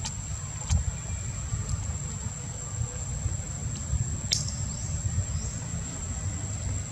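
Outdoor forest ambience: a steady high-pitched insect drone over a low rumble, with scattered faint clicks and a short high chirp about four seconds in.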